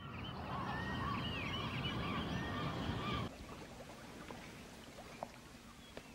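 Several waterfowl calling over a steady low rumble, cutting off abruptly about three seconds in. After that only faint background remains, with a few light clicks.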